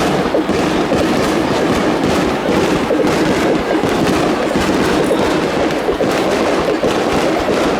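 Fireworks going off in a rapid, continuous barrage, many pops and crackles close together with no pause.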